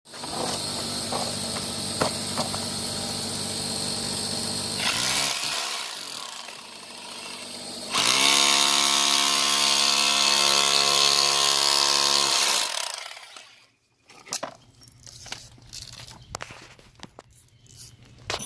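Electric power drill running steadily with a pitched motor whine, easing off briefly, then running hard again before winding down and stopping about twelve and a half seconds in. Light scattered knocks and clicks follow.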